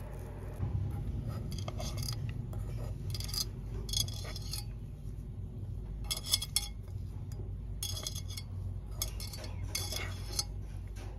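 Hands breaking up cooked chicken on a plate, then crumbling cooked rice in a non-stick pan. Short, irregular rustling and light clinking noises come and go over a steady low hum.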